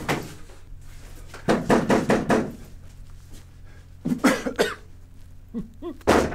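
A man breathing hard in ragged gasps, in three bouts, with a few short voiced catches in the breath near the end.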